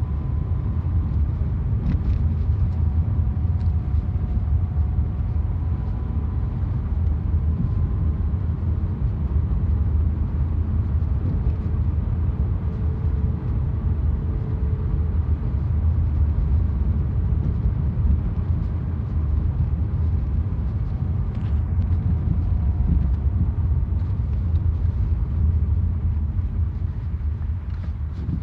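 Lada Vesta driving, with a steady low road rumble and a few faint knocks from the front suspension, which the owner puts down to worn strut mounts.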